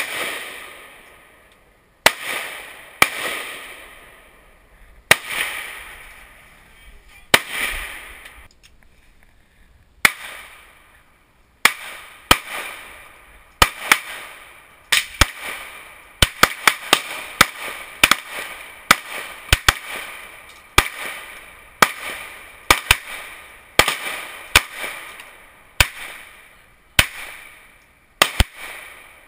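Gunfire: a long string of single pistol and rifle shots, each ringing out briefly, spaced a second or two apart and coming faster near the middle.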